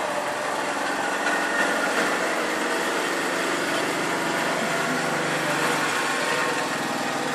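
A small engine running steadily, a continuous mechanical drone.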